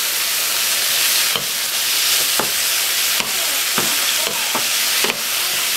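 Sliced roast beef and mushrooms sizzling in oil in a frying pan, with a steady hiss, while a wooden spatula stirs them, scraping and knocking against the pan about six times.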